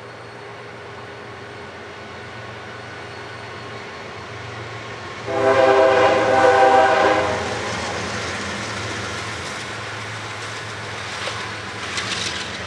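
Horn of a CSX GE ES44DC diesel locomotive: at first it sounds faintly, then about five seconds in it gives one loud blast of about two seconds. After the blast the passing train rumbles on steadily, with sharp clicks of wheels over rail joints near the end.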